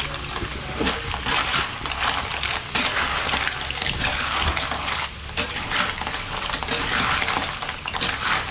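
Sò lông cockles being stirred and tossed in a metal wok with a wooden spatula and a metal utensil: repeated wet scraping strokes about once a second, shells clattering against the pan, over a steady hiss.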